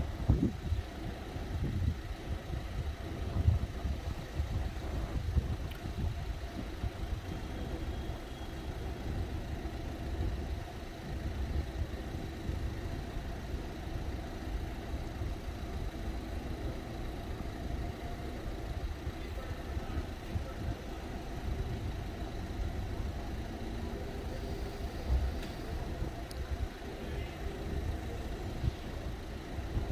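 A waiting car's engine idling steadily, with a low rumble and a few louder moments.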